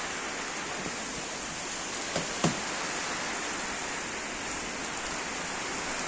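Heavy rain pouring steadily, with two sharp knocks a moment apart about two seconds in.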